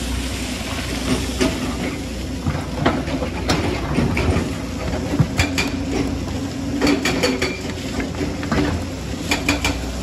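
Hydraulic crawler excavator's diesel engine running steadily under load while the bucket digs into rocky soil, with repeated sharp clanks and clatters of the bucket and rocks striking stone, coming thickest in the second half.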